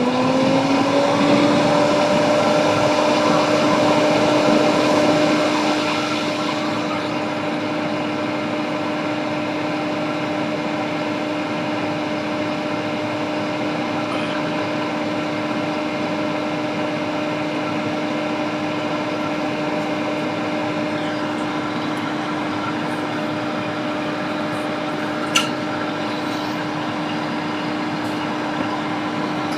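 Small electric motor spinning up at the start and then running steadily at one pitch, with an airy hiss that eases off after a few seconds. A couple of short clicks come near the end.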